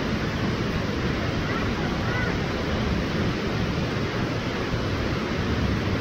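Steady rushing noise of a large waterfall plunging into its pool.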